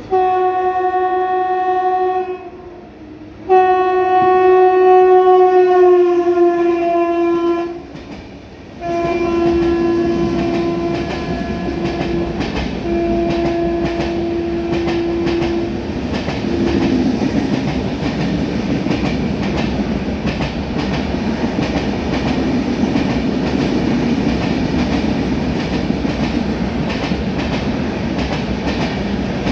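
Indian Railways express locomotive's horn: two long blasts, the second dropping in pitch as the train passes, then several shorter blasts. The train runs through the halt without stopping, and its coaches roll past with steady rumble and wheel clatter on the rail joints.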